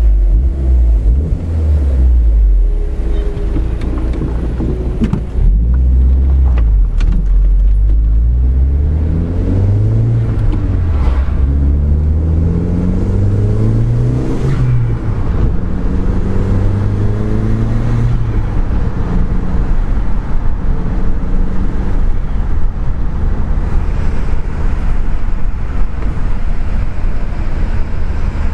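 Audi TT 8N's 1.8-litre turbocharged four-cylinder engine heard from inside the cabin while driving. Its pitch climbs and drops several times in the first half as the car accelerates through the gears, then it runs steadily for the last ten seconds.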